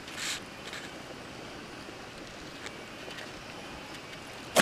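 Faint steady outdoor background noise with a short rustle about a quarter second in. At the very end comes a single sharp slap as the landed carp starts to flap on a plastic mat.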